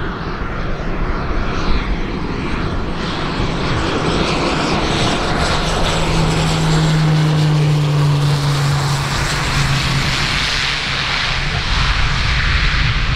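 Cessna 208 Caravan's PT6A turboprop and new five-bladed propeller passing low on landing approach. It is a steady turbine-and-propeller drone that grows louder toward the middle, and its low hum drops slightly in pitch as the aircraft goes by.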